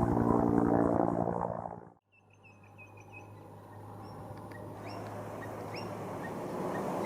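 Firefighting helicopter's rotor and turbine, loud, with fast even rotor pulses, cutting off abruptly about two seconds in. Then birds chirping in short calls over a low steady hum and a slowly rising rumble.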